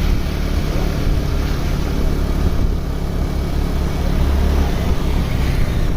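Bus diesel engine running with a steady low rumble.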